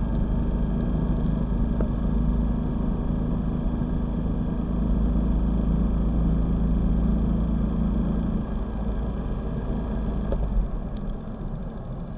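Steady rumble of wind and road noise from a moving motorcycle, heard on its mounted camera. A low hum fades after about eight seconds, and the noise is quieter for the last couple of seconds.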